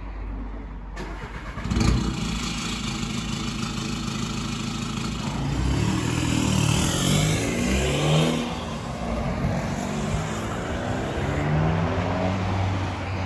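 Straight-piped VW Golf Mk6 1.6 TDI four-cylinder diesel running loudly, its exhaust note rising and falling as it is revved.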